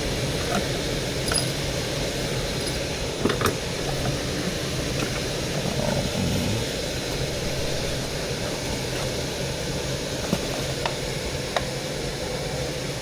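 Steady mechanical hum and hiss, with a few light metallic clicks and taps of hand tools at work on the refrigerant line fittings.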